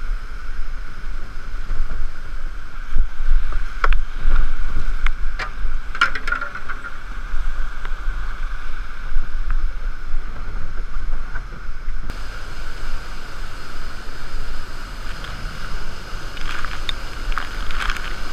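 Steady rush of whitewater pouring over a waterfall, with a deep rumble underneath and a few sharp knocks about four to six seconds in.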